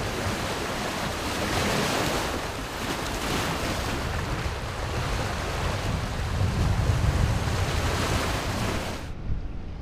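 Lake waves washing and breaking over ice-coated shore rocks in surging swells, with wind buffeting the microphone as a low rumble.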